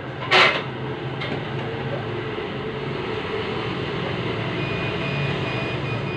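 Steady low rumbling vehicle noise, with one short, loud hiss about half a second in.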